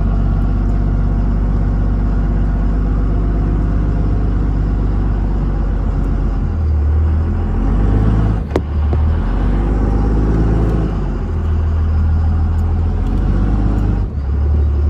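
Truck engine running under load as it crawls up a rocky trail, its low drone shifting in pitch as the throttle changes. There is a single sharp knock about halfway through.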